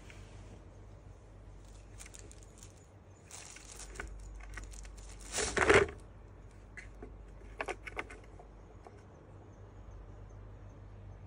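Plastic balls rattling and clicking in a tiered ball-track cat toy as a kitten paws at it, in scattered taps and short clatters, the loudest about halfway through.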